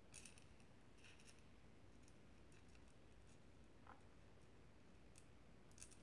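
Faint, scattered clicks and scrapes of a small screwdriver working screws into the metal RAM shield of an iBook G3.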